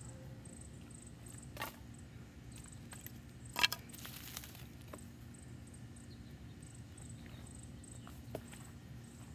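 Crickets chirping steadily in a quick, even pulse. Over them come two sharp scraping strikes, about one and a half and three and a half seconds in; the second is the loudest and trails a hiss of about a second.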